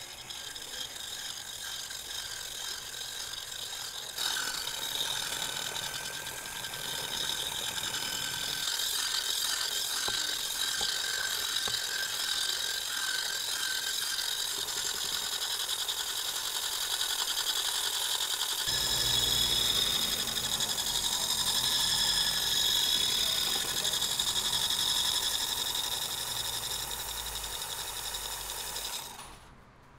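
Handheld electric whisk mixer running steadily in a steel pot, churning flour and water into batter, with a high motor whine. The motor cuts off near the end.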